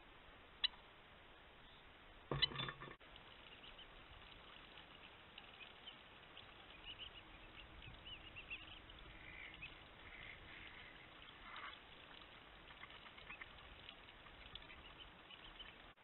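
Ducks and birds at a farm dam: a sharp click under a second in, then a short loud flurry about two and a half seconds in, followed by many faint, scattered high chirps and calls over a low hiss.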